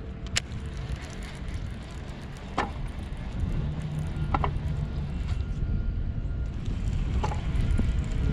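Steady low rumble of wind buffeting the microphone, with a few sharp clicks scattered through it.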